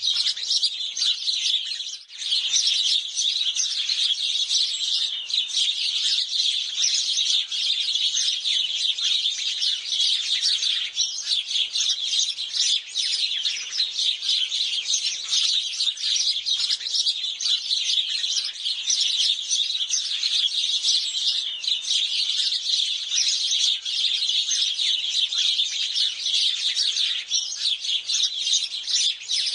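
A flock of sparrows chirping constantly, many short chirps overlapping, with a brief lull about two seconds in.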